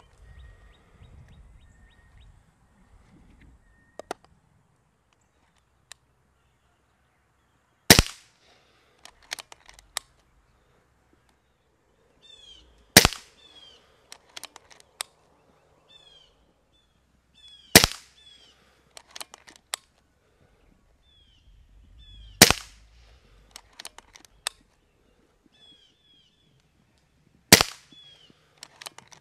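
Kral Puncher Breaker .22 air rifle fired five times, about five seconds apart, each sharp shot followed by a few quieter clicks. Faint short chirps sound between the shots.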